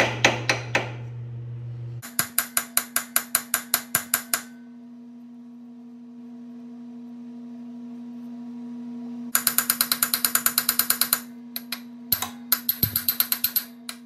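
Ratchet wrench clicking rapidly in bursts, about seven clicks a second, as the bolt in the centre of a riding mower's engine pulley is turned. There is a pause of about five seconds in the middle with only a low steady hum.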